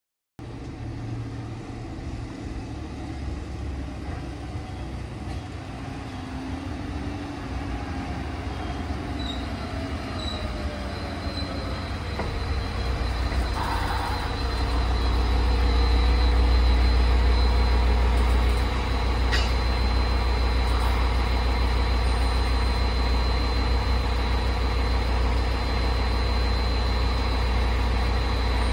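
JR West DEC741 diesel-electric inspection train at a station: a falling whine as it slows, then a steady low engine rumble and a thin steady high whine as it stands with its diesel engine idling. One sharp click about two-thirds of the way in.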